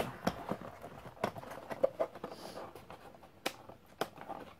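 Small cardboard box being closed by hand, its flaps folded and tucked in, giving irregular light taps and scrapes of cardboard.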